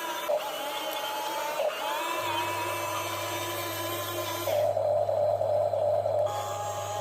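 Small electric gear motors of remote-control model excavators whining as their arms and tracks are worked, the pitch changing and breaking briefly as controls are switched. About two-thirds of the way in the whine shifts to a lower, heavier tone, with a second steady tone joining near the end.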